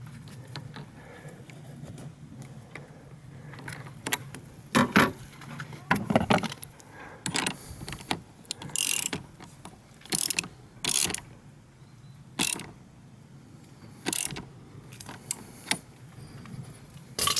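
Ratchet wrench clicking in short strokes, likely tightening the clamp nut on the newly connected negative battery terminal. The bursts come irregularly, about a second or two apart, starting a few seconds in.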